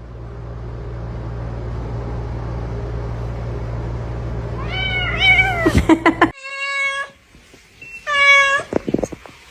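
Domestic cat meowing three times: a first call that rises and falls in pitch about five seconds in, then two shorter, steadier meows about a second and a half apart. Under the first part runs a steady low hum that cuts off suddenly just after the first meow.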